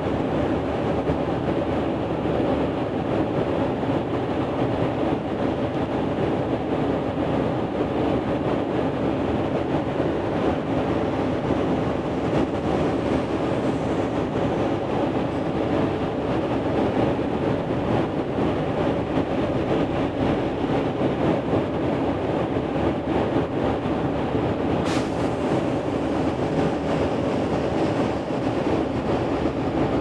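A building's ventilation system running with a steady, even whoosh of moving air and a low hum. There is one short sharp click near the end.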